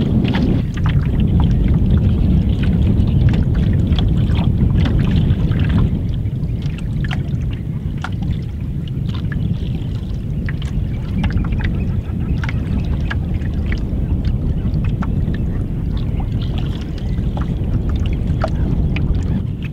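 Choppy water lapping and splashing against a wooden canoe's hull as it moves across the estuary, over a steady rumble of wind on the microphone. It is louder for the first six seconds or so, then settles.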